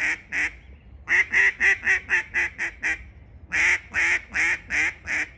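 Featherstone Lady May hybrid mellow duck call blown in quick series of quacks: two quacks, then a run of about eight that fades toward its end, a short pause, and a second loud run of about seven.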